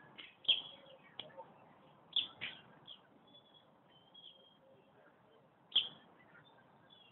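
Birds chirping in short, high calls, with a few sharp clicks among them, the loudest a little before the end.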